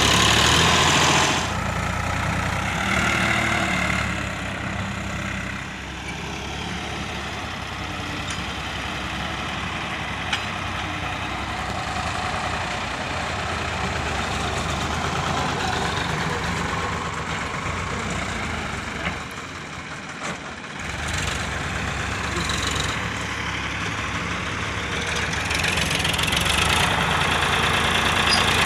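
Sonalika DI 750 tractor's diesel engine running, louder near the start and again near the end while its hydraulic tipping trailer is raised to dump soil.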